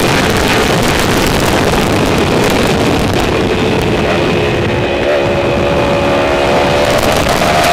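Liter-class inline-four sportbike engine running hard at high revs, heard from the bike itself, under heavy wind rush. About five seconds in, the engine pitch steps up.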